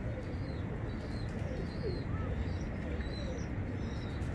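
Bulbul singing a soft, whispered warble of faint short chirps and little glides, the subdued song of a bird that is out of its full singing season, over a steady low hum.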